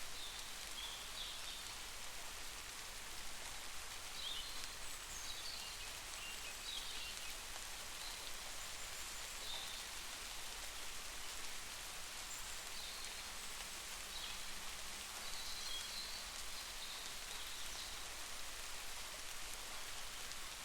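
Steady rain falling, an even hiss, with short high chirps scattered through it.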